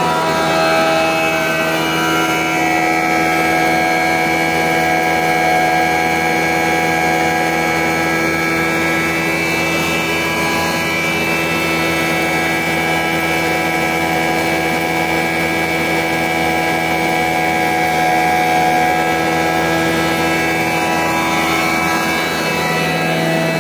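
Two-head electric pulveriser (flour mill) running steadily while grinding rice: a loud, even machine drone with several held whining tones that do not change.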